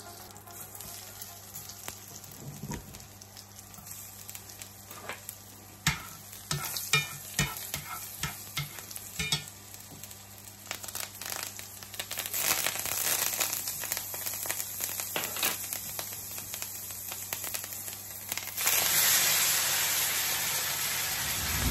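Butter, garlic and herbs sizzling in a frying pan, with scattered clicks and taps of tongs and pieces going into the pan. A little past halfway the sizzle grows, and near the end it jumps to a much louder, steady hiss as the sous-vide-cooked roast beef is laid into the hot butter to sear.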